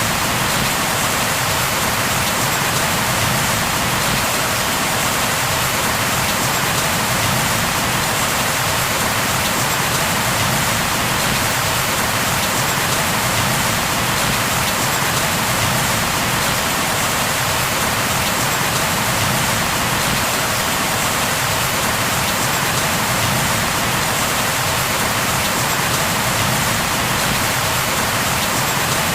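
Steady rain falling on a surface, a constant dense hiss without thunder or distinct drops standing out.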